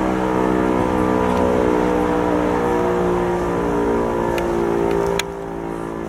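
E57 electromechanical civil-defence siren sounding a steady, many-pitched tone. The level drops abruptly about five seconds in.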